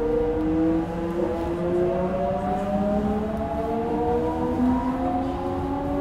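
Odakyu 1000 series electric train accelerating, its VVVF inverter and traction motors whining in several tones that rise slowly in pitch, over a low rumble of the wheels on the rails.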